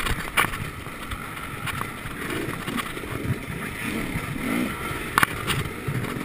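Enduro motorcycle engine running at low revs, rising and falling as the rider works the throttle at walking pace over rough ground. Two sharp knocks from the bike jolting over bumps come about half a second in and about five seconds in.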